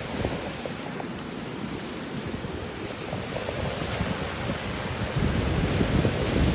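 Surf washing onto the beach, with wind buffeting the phone's microphone; the gusts get louder near the end.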